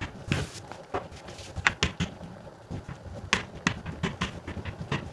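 Rolling pin working dough out into a thin sheet on a board: a low rolling rumble with irregular knocks and clicks as the pin is pushed and set down.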